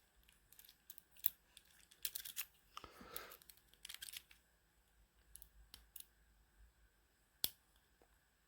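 Faint scattered clicks and brief scrapes of lock picks and a tension wrench working a Master padlock, with one sharper click near the end.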